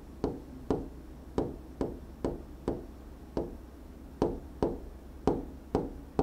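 Pen tip tapping and knocking on a writing display's surface while drawing a row of short looping strokes, about a dozen sharp taps at roughly two a second, slightly uneven.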